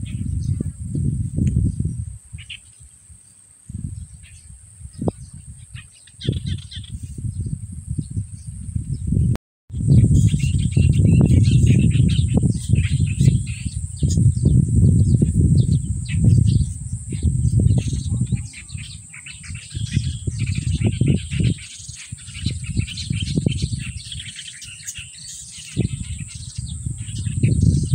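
Small birds chirping and twittering, over a low rumbling noise that comes and goes in surges and a steady high-pitched whine. The sound drops out briefly about nine seconds in.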